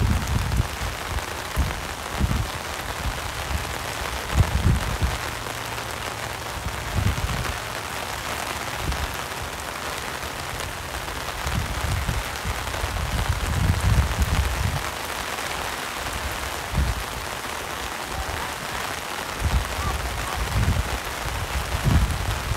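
Steady hiss of rain falling, broken by irregular low rumbles and thumps.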